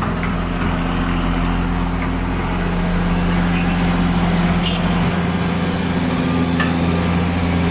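Heavy diesel engine running steadily with an even, pitched drone; its deepest rumble drops away about five seconds in.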